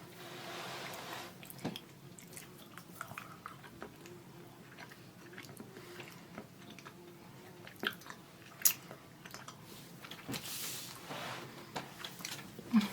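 Faint chewing and mouth sounds of someone eating a piece of chocolate bar, with a few small clicks.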